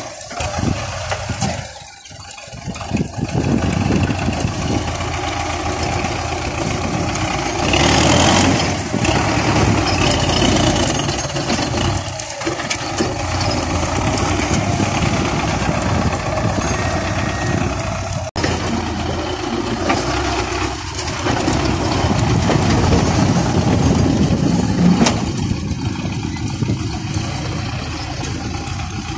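Belarus MTZ-50 tractor's four-cylinder diesel engine running while it works its front loader, the engine note rising and falling in loudness, with a brief dip about two seconds in.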